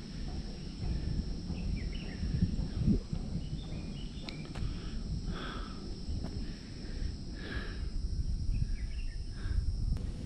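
Insects droning steadily on one high pitch, with short bird chirps scattered through and a low rumble of wind on the microphone that swells in gusts.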